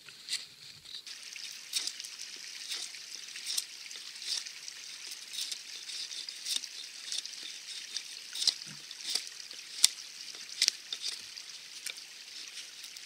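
Wetterlings Bushman hatchet blade shaving bark off a wooden stick in short repeated strokes, a little more than one a second, each a brief dry scrape. One stroke about ten seconds in is sharper than the rest.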